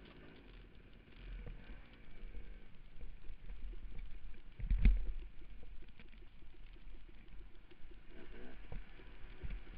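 Dirt bike engine running and revving up and down as it is ridden over rough trail, heard from the rider's helmet camera with rumble on the microphone. A loud thump about five seconds in, and the engine pitch rises and falls more strongly near the end.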